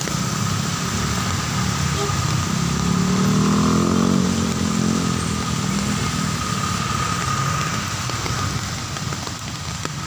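A motor vehicle passing through steady heavy rain, its engine growing louder about three seconds in and fading away a few seconds later.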